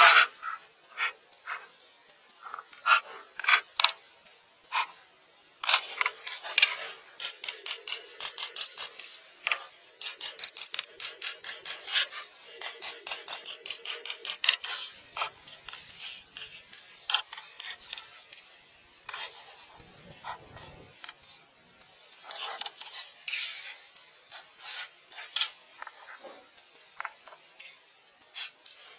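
Scratching and rubbing strokes in quick runs of several a second, with short pauses between runs.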